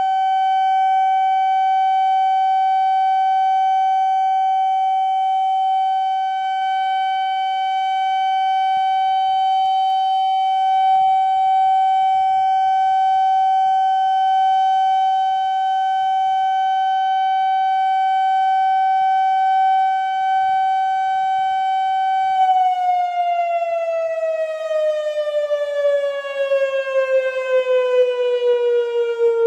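Whelen 2750 electronic outdoor warning siren sounding a loud steady tone during a test. About 22 seconds in, the pitch starts falling steadily as the siren winds down.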